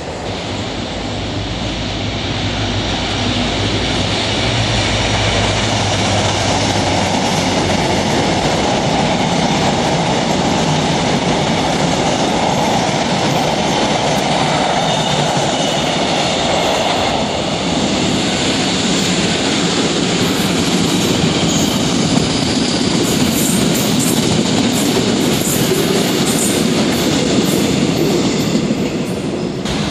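Passenger trains passing close by on a multi-track electrified line: a steady, loud rumble of steel wheels on rail, with a run of sharp clicks from the wheels in the second half.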